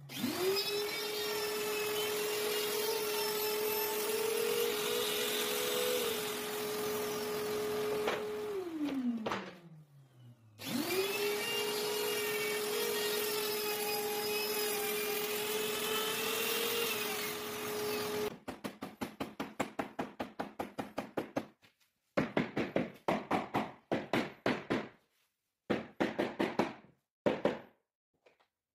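Compact trim router spinning up to a steady high whine, running for several seconds and winding down, then a second run, as it trims the edge of a wood-look floor plank. In the last third, rapid mallet taps in bursts knock a floor plank into place.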